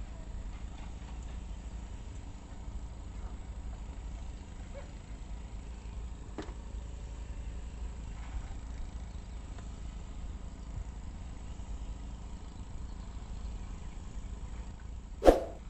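Steady low rumble of open-air noise in a small boat on a river, with a few faint ticks, and near the end one loud, sharp knock that rings briefly, a hard object striking the boat or the fishing gear.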